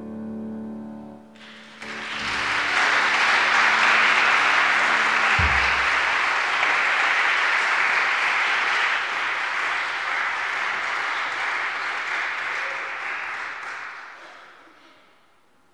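The last chord of a Sauter grand piano dies away, then an audience applauds steadily for about twelve seconds, tapering off near the end. A single low thump sounds about five seconds in.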